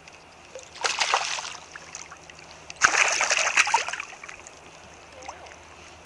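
A hooked bass thrashing and jumping at the surface, making two splashes, one about a second in and a longer one about three seconds in.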